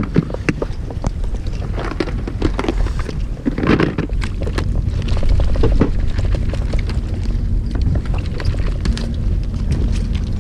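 Steady low rumble of a fishing boat's engine and wind on the microphone, with rustling, clicks and light knocks of gear and a plastic bag being handled while packing up.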